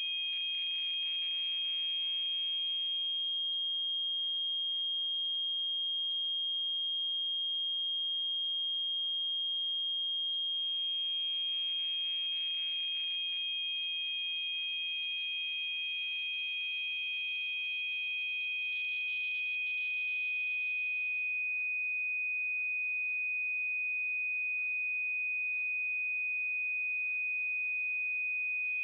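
Tinnitus-masking tones: two steady, high-pitched pure tones a little apart in pitch, each wrapped in a faint band of hiss. The lower tone fades out a few seconds in and fades back about eleven seconds in. The higher tone fades out about two-thirds of the way through.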